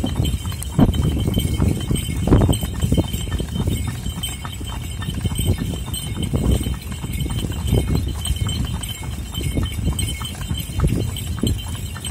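Horse's hooves clip-clopping on pavement at an uneven walking rhythm, a knock every few tenths of a second, over a steady low rumble.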